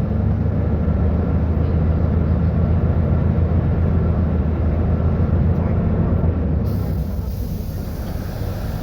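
Diesel engine of a Mercedes-Benz O500U city bus with a Voith automatic gearbox, running steadily with a deep low hum, easing off a little near the end.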